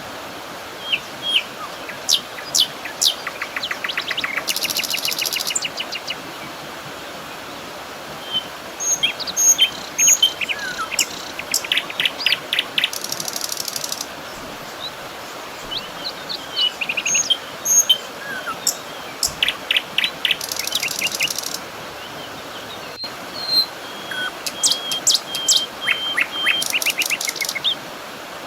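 Several songbirds chirping and trilling over a steady soft background hiss, with a buzzy high trill recurring about every eight seconds.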